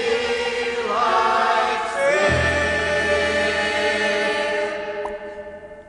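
Sung song with several voices ending on a long held chord that fades out near the end.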